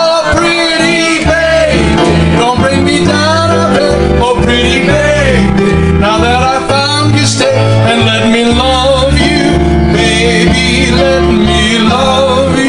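Live piano-bar song: a man sings into a microphone over his own piano accompaniment.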